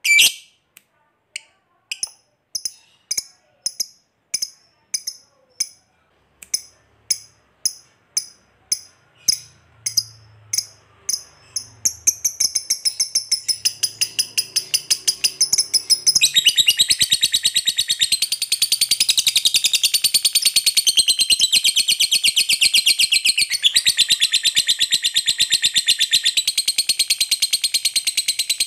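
Lovebird calling: single sharp, high chirps about twice a second that quicken (the 'ngetik' call), then about twelve seconds in breaking into a long, rapid chattering trill (the 'ngekek' prized by lovebird keepers), which turns fuller and louder a few seconds later.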